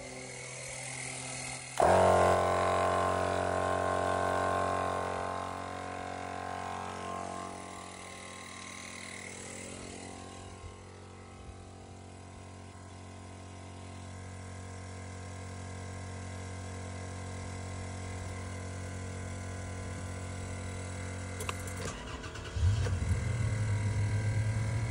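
A small 12-volt tire inflator is humming when a Tozalazz dual-cylinder air compressor starts up about two seconds in, louder, and the two motors run together in a steady drone while they pump up tires. Near the end a louder low hum comes in.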